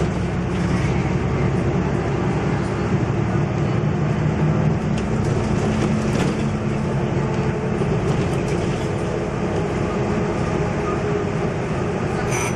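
MAN NL222 city bus heard from inside while under way: the diesel engine runs steadily over tyre and road noise, with a few faint rattles from the cabin.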